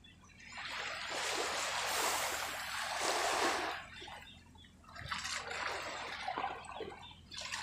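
Sea water lapping and splashing against a boat's hull, rising and falling in two swells of rushing noise: one about a second in lasting some three seconds, another from about five seconds in.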